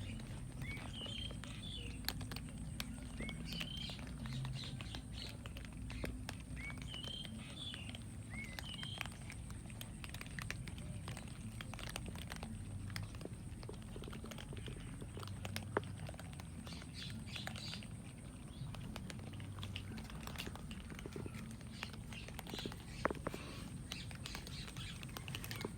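Cats chewing and crunching food, heard as scattered short clicks, while small birds chirp in short rising pairs, mostly in the first ten seconds and again near the end.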